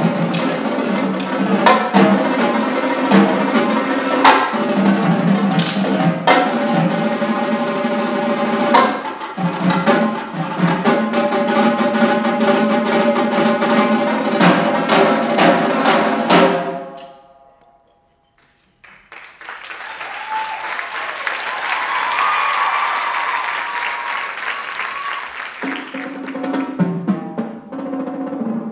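Three marching tenor drum sets (quints) played in a fast, dense unison feature, with rapid pitched strokes and rolls across the drums. The playing cuts off sharply a little past halfway, and after a brief silence the audience cheers and shouts for several seconds before the drums start again near the end.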